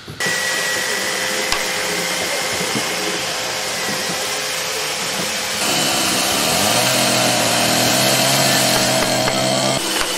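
Power tools running steadily on wood, with a thin steady whine. About five and a half seconds in, a louder tool with a low hum takes over.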